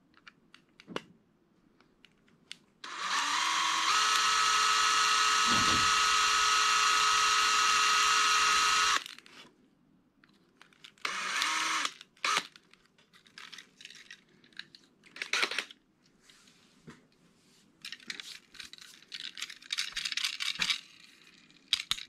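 Cordless drill spinning a twist bit into the rivet of a die-cast Hot Wheels car to drill the rivet head off: a steady whine for about six seconds, then a second short burst a couple of seconds later. After that come scattered light clicks as the car is handled.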